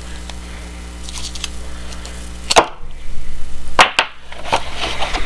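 Two sharp knocks on a hard surface, about two and a half and four seconds in, with lighter handling clatter around them over a steady low hum.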